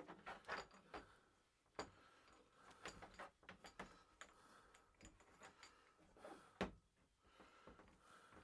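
Faint, scattered clicks and knocks of plastic shower-faucet plumbing parts being handled and fitted, with one louder knock about six and a half seconds in.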